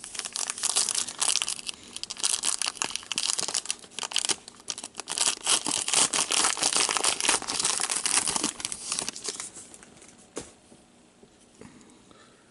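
A hockey card pack's wrapper being torn open and crinkled in the hands: a dense run of tearing and crackling that dies away a few seconds before the end.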